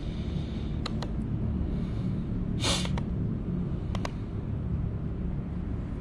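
Steady low hum and rumble of background noise, with a few faint clicks and one short breathy hiss about halfway through.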